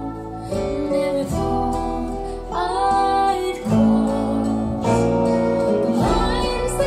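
A country-bluegrass song with female vocals and acoustic guitar, played through YG Acoustics Carmel 2 hi-fi loudspeakers and picked up by room microphones.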